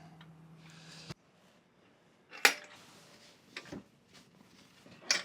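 Three sharp knocks, the loudest about two and a half seconds in, the others near the middle and near the end; a low hum cuts off abruptly about a second in.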